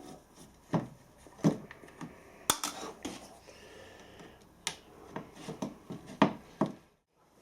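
Scattered sharp clicks and knocks of hands and tools working on the plastic housing of a DeWalt grinder as it is taken apart to get the side cover off.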